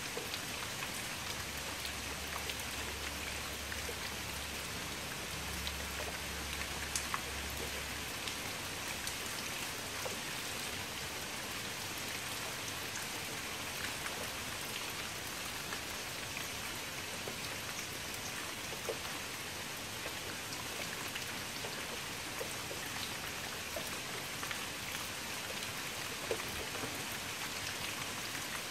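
Steady rain falling on shallow standing water: a dense, even patter of drops splashing on the surface, with a few louder single drop hits scattered through.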